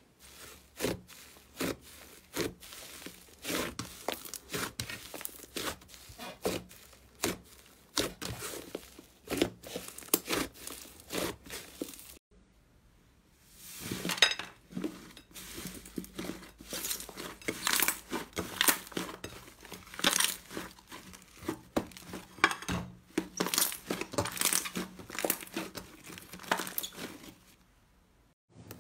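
Slime being pressed and kneaded by hand, a dense, irregular run of sticky pops and crackles. It stops for about a second near the middle, then a thick red slime is squeezed with the same crackling.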